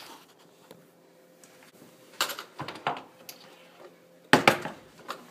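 Crock pot being handled on a kitchen counter: a few light knocks about two to three seconds in, then a loud knock and short clatter about four and a half seconds in as it is set down.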